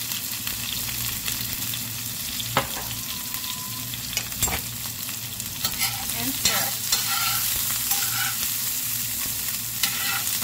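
Diced zucchini sizzling in hot avocado oil in a cast-iron skillet. There are two sharp knocks a few seconds in, then from about halfway a metal spoon scrapes and clinks against the pan as the zucchini is stirred.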